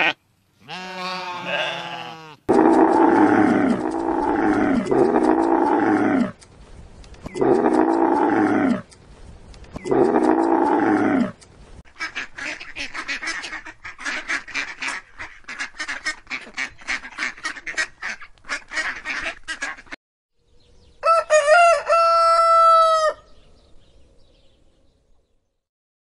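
A series of farm animal calls: a lamb bleats at the start, then mallard ducks give five loud, drawn-out quacks followed by a stretch of rapid quacking chatter. About 21 s in, a rooster crows once, for about two seconds.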